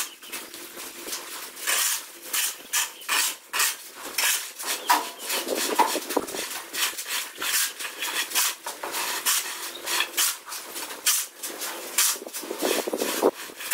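Hand trowel and straightedge scraping and patting wet cement mortar while a floor screed is spread and levelled, in quick, irregular strokes.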